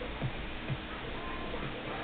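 Background music with a steady beat, about two low thumps a second.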